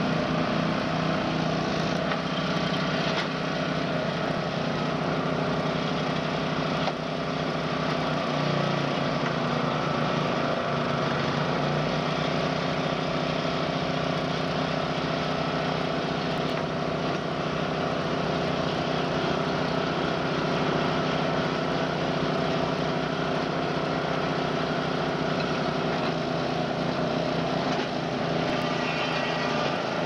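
Mobile pine straw baler running, its engine running steadily.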